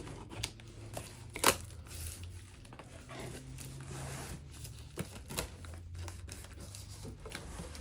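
Box packaging being handled and opened by hand: rustling and crinkling with scattered sharp clicks, the loudest about a second and a half in.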